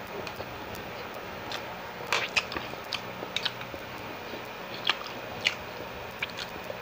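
Close-up chewing of steamed siomai, with wet mouth smacks and short sharp clicks scattered through, the loudest a little over two seconds in.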